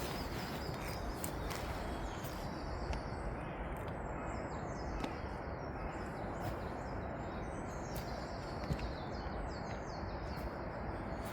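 Small birds chirping in short, repeated calls over a steady outdoor background hiss, with a few light clicks.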